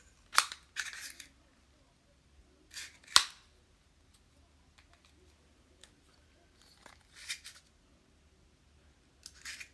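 Handling noises from assembling a tablet/phone tripod mount: a few scattered clicks and rustles of small parts, the sharpest click about three seconds in.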